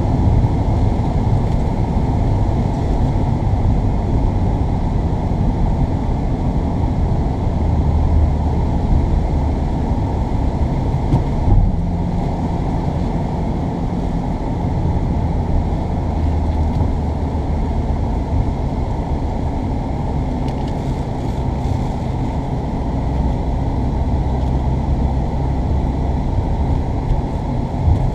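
Steady low rumble of a motor vehicle running, with no distinct events.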